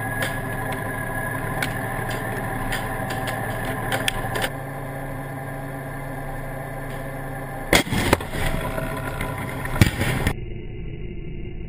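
A tank engine running steadily, with scattered gunshots in its first few seconds. About eight seconds in there is a loud blast, and a sharper one follows about two seconds later as dust rises in front of the tank.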